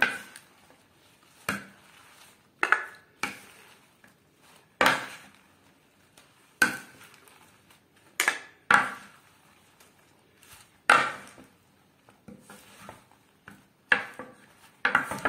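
Salad servers knocking against a wooden salad bowl as lettuce is tossed: a dozen or so sharp wooden clacks, spaced irregularly every second or two.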